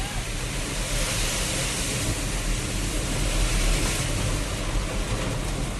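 Heavy rain pouring down, a steady rushing hiss with a low rumble underneath.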